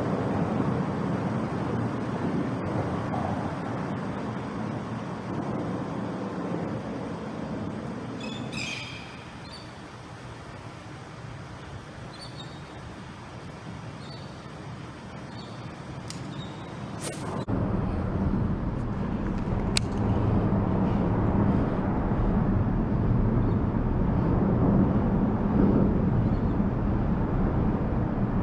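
Road traffic on the bridge, a steady rushing rumble that eases off for several seconds and then swells back up sharply about seventeen seconds in. A short high squeak about eight seconds in, and a few sharp clicks.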